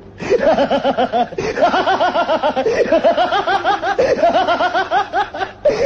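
Continuous laughter, a long run of quick pitched 'heh-heh' pulses at about five a second, breaking off briefly about a second and a half in and again near the end.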